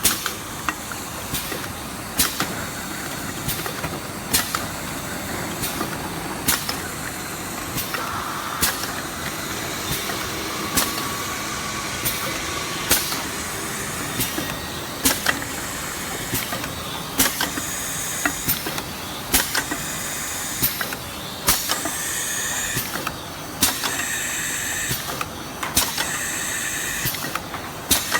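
Semi-automatic tube filling and sealing machine running through its cycles: a steady hiss from the hot air gun's blower, with a sharp pneumatic clack about every two seconds as each stroke fires. Short bursts of air hissing join in during the second half.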